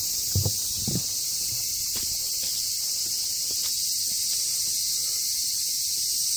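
Loud, steady high-pitched chorus of summer insects. A couple of footsteps sound about half a second and a second in.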